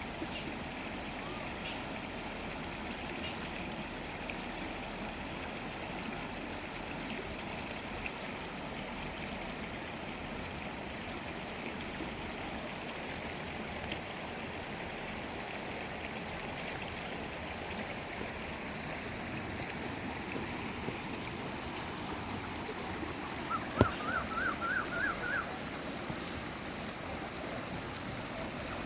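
Flowing stream water rushing and gurgling steadily. Late on there is a single sharp click, then about two seconds of short, quickly repeated rising high notes.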